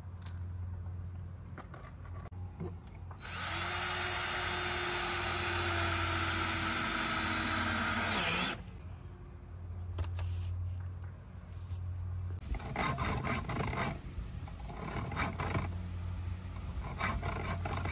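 Cordless drill driving a nut along a threaded rod on a fence-post brace, tightening it to pull a leaning fence upright. The motor runs steadily for about five seconds, its pitch sagging slightly as it stops, then runs again in several short bursts near the end.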